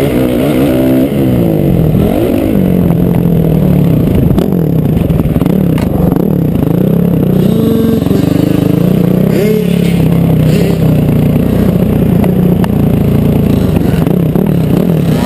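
Dirt bike engine revving up and down over and over as the bike is ridden hard across rough ground, loud and close.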